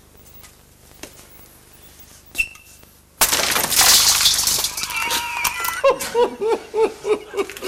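A sudden loud crash about three seconds in, then a man laughing in a steady run of 'ha-ha' pulses.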